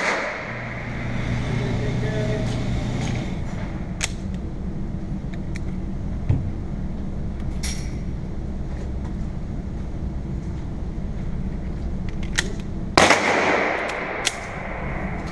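Taurus PT140 Millennium Pro .40 S&W pistol firing: the ringing tail of one shot at the start, and one loud shot with a ringing echo about 13 seconds in. Between them come a few fainter sharp cracks over steady low background noise.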